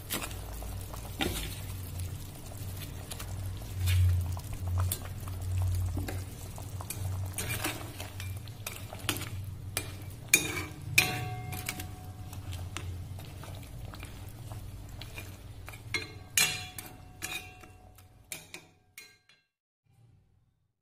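A spatula stirring and scraping in a wok of simmering fish curry, with repeated clinks and scrapes over the sizzle of the bubbling gravy and a low steady hum underneath. The sounds thin out and stop near the end.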